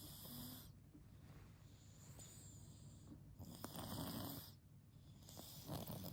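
A person snoring in sleep, with about three rasping breaths spaced a second and a half to two seconds apart.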